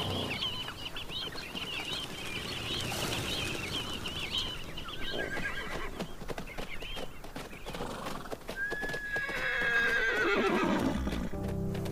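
A Namib desert horse whinnying once, about nine seconds in: a long call that starts high and slides down in pitch. Before it, hooves thud on the sand and a flock of Namaqua sandgrouse chirps, fading out by the middle.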